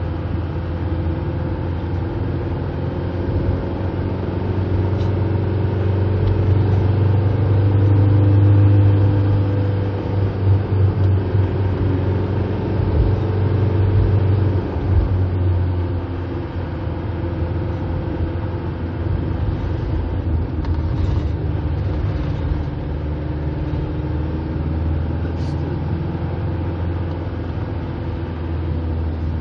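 Engine and road noise heard from inside a moving car: a steady low drone with a faint engine pitch that drifts slightly. It swells a little about eight seconds in and again near fourteen seconds.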